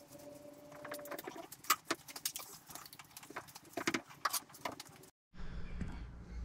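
Irregular light clicks and knocks, scattered over several seconds with no steady rhythm. Near the end they stop and give way to a low steady hum.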